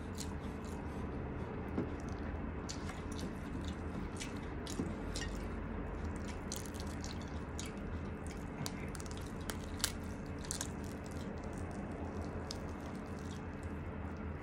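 Grilled chicken being torn apart by hand, with scattered wet, sticky clicks and squishes of greasy fingers and meat, a few sharper ticks among them, over a steady low hum.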